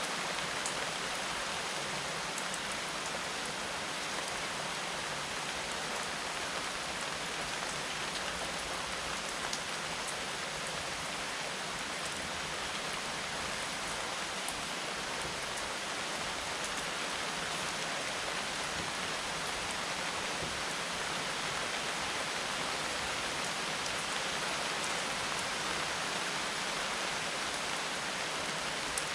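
Steady rain falling, a dense even hiss of drops with a few faint, sharp drop ticks.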